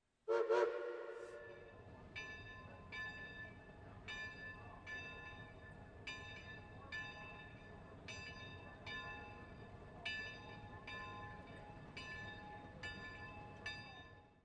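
Steam locomotive bell ringing steadily, about one stroke a second, over a low steady rumble. It opens with a short, loud pitched blast.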